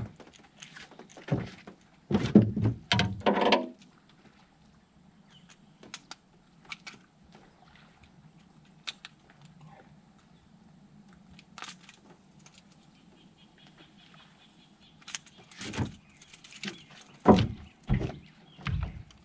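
Knocks and thumps on an aluminium jon boat as a caught bass is put away and someone steps across the deck. A cluster of loud knocks comes about two to three seconds in and another run near the end, with a faint steady hum and small clicks in between.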